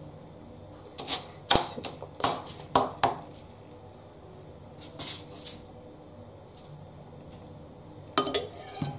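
A metal spoon clinking and scraping as it scoops fried onion and carrot from a bowl and spreads it over a mackerel on aluminium foil. The sharp clicks come in clusters: about one to three seconds in, again around five seconds, and near the end.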